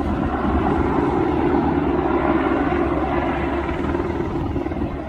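Steady drone of a firefighting helicopter's engine and rotor.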